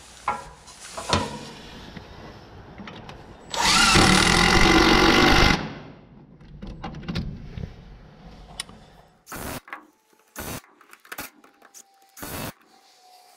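Cordless impact driver driving a screw through a steel Simpson Strong-Tie into a wooden beam: a couple of knocks, then one loud run of about two seconds, then three short bursts near the end as the screw is snugged down.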